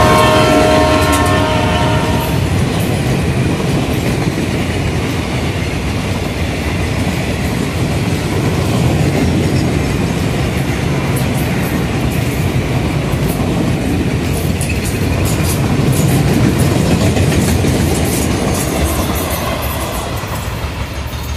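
Container freight train passing close by. The diesel locomotive's horn sounds and stops about two seconds in. Then the flat wagons roll past, with clickety-clack from the wheels, and the sound eases slightly near the end as the brake van goes by.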